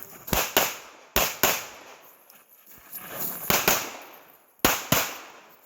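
9mm pistol shots fired at a shooting match, about seven sharp reports, several in quick pairs about a quarter second apart, each with a short echoing tail.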